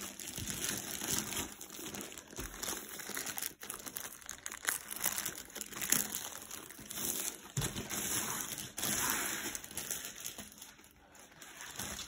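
Plastic wrapping crinkling and rustling as a rolled diamond painting canvas is unwrapped and unrolled by hand.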